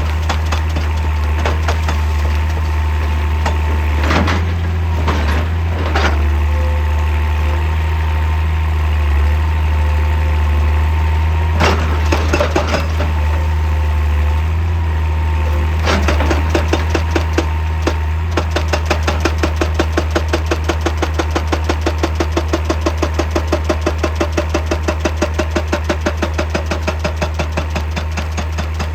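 Excavator diesel engine running with a steady low drone, with a few sharp knocks in the first half. Over the second half a fast, even pulsing comes through.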